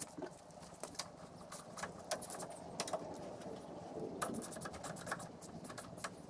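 Irregular metallic clicks and clinks of hand tools and bolts being handled at a pumping-unit gearbox's bearing housing, with a quick run of clicks about four seconds in.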